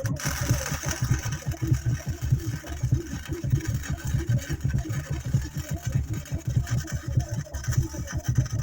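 Welding arc on a steel bracket, crackling and hissing; it strikes up suddenly and cuts off near the end. A steady low pulsing rumble, like an engine running, sits underneath.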